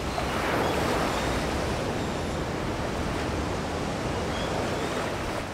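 Sea waves washing: a steady rushing of water that swells a little about a second in.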